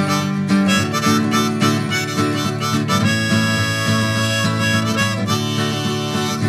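Background music: an instrumental break in a song, led by a harmonica, with a long held note through the middle.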